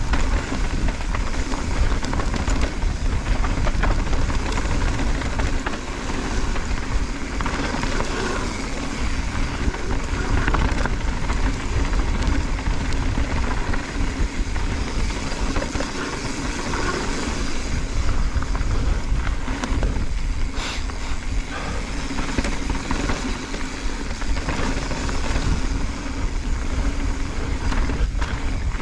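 Mountain bike riding fast down a dirt and gravel trail, heard from a camera on the rider: a steady rumble of wind on the microphone and tyres on the dirt, with knocks and rattles from the bike over bumps.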